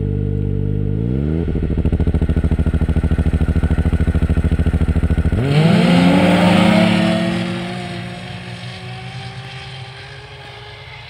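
A Ski-Doo Mach Z snowmobile's Rotax 900 ACE Turbo R three-cylinder turbocharged engine idles. About a second in it revs up and is held at a raised, rapidly pulsing rpm by launch control. About five seconds in the sled launches, and the engine note sweeps upward as it accelerates hard, then fades into the distance as it pulls away.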